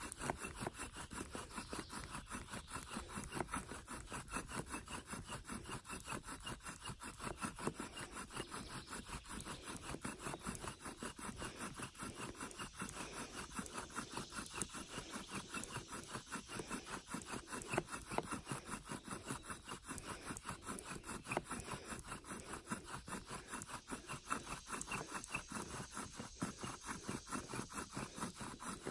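Bow drill at work: a wooden spindle, turned by a bow strung with wild dogbane cordage, grinding in the socket of a wooden hearth board to make fire by friction. Steady, fast back-and-forth rubbing strokes.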